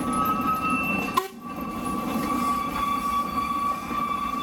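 Narrow-gauge passenger carriages rolling slowly past on the rails, with a steady high-pitched squeal from the wheels over the low rumble of the running gear. The sound briefly drops out about a second in.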